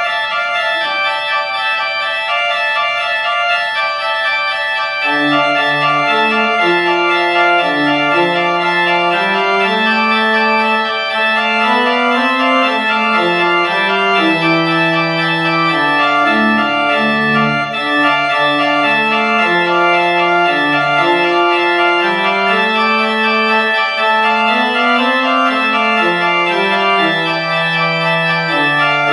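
Church organ playing a slow piece: sustained chords held without fading, joined about five seconds in by a lower line moving stepwise beneath them.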